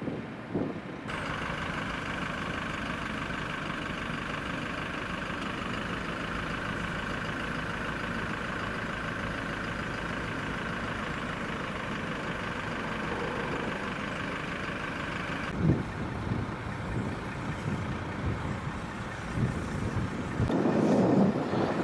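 A vehicle engine idling steadily, cutting in abruptly about a second in and stopping abruptly about two-thirds of the way through. After that comes wind on the microphone, with a louder rush near the end.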